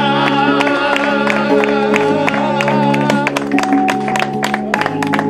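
Electronic keyboard playing held chords with a beat, a wavering melody over the first three seconds, and hands clapping along.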